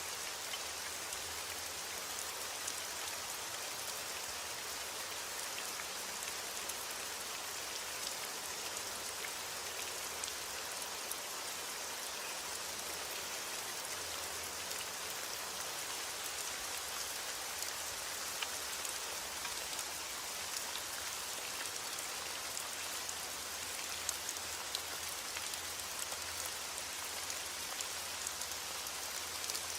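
Steady heavy rain falling, a dense even hiss with many small drop ticks throughout.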